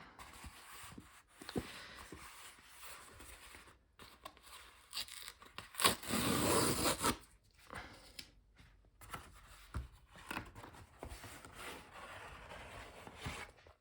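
A parcel's packaging being torn and rustled open by hand, with a louder tear lasting about a second, about six seconds in.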